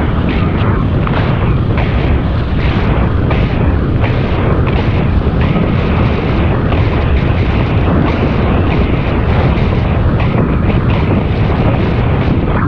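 Wind rushing over the microphone of a camera riding along on a moving bicycle: a loud, steady, low rumble with irregular gusty buffeting, with tyre noise on pavement mixed in.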